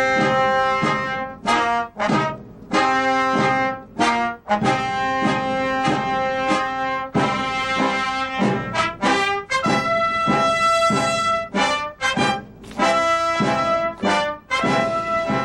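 Brass music: a single melody of held notes, one at a time with short breaks between them.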